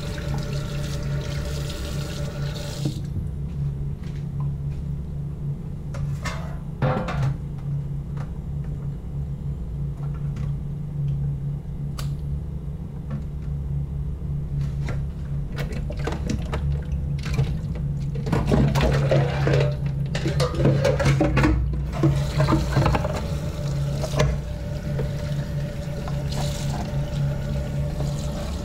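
Tap water running into a stainless steel sink, with splashing and clatter as squid pieces are rinsed and turned by hand under the stream. The splashing is loudest about two-thirds of the way through. A steady low hum runs underneath.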